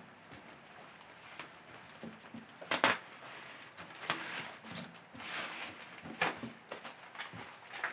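Cardboard box being handled and turned over, with scattered scrapes and rustles of card, and one louder scrape or knock about three seconds in.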